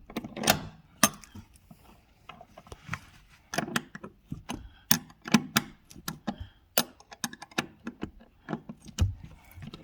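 Irregular metallic clicks and clanks of hand tools and seat-belt buckle hardware being handled after a rusted mounting bolt has been broken loose.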